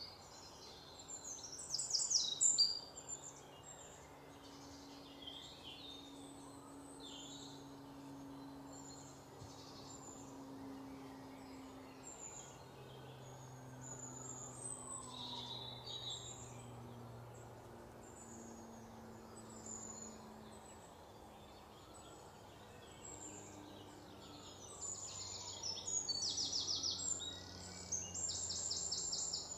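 Birds chirping and trilling, with fast rapid-fire trills about two seconds in and again near the end that stand out as the loudest sounds, over a faint low hum.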